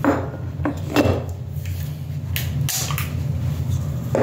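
Handling noises: several short knocks and scrapes, spaced about a second apart, over a steady low hum.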